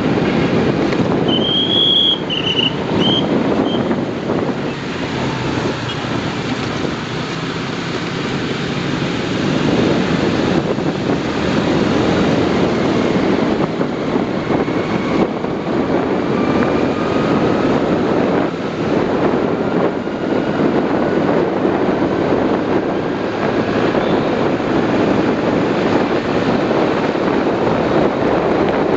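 Steady rumble of road and engine noise from a moving vehicle, with wind on the microphone. A few short high-pitched chirps sound about one to four seconds in.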